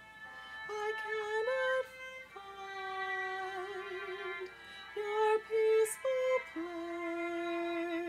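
Slow, gentle music: a single melody line of long held notes with vibrato, the passage between sung lines of a song.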